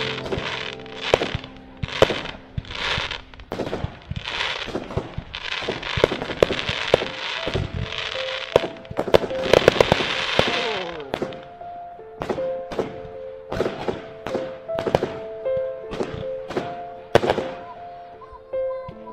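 Fireworks going off in a string of sharp bangs, with a dense stretch of crackling about nine to eleven seconds in. Background music with sustained tones runs underneath.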